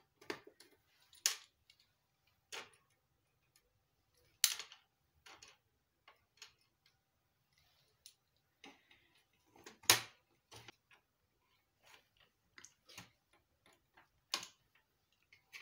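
Scattered plastic clicks and knocks from hands and a screwdriver working on the opened plastic case of an HP ScanJet G3110 flatbed scanner. A few sharper knocks stand out: about a second in, around four and a half seconds, near ten seconds and again near the end.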